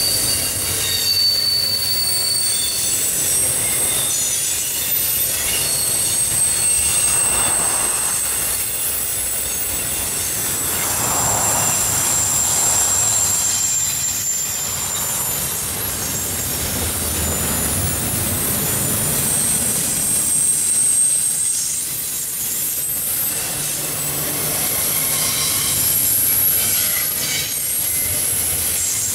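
Intermodal freight train's trailer and double-stack container cars rolling past, a steady rumble of steel wheels on rail. High-pitched wheel squeal comes and goes throughout.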